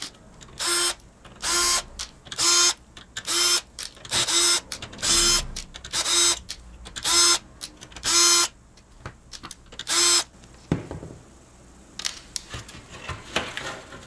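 Cordless drill/driver spinning in about ten short trigger bursts, roughly one a second, as it works the screws holding a PC case's front radiator mount; near the end, clicks and rattles of the case panel being handled.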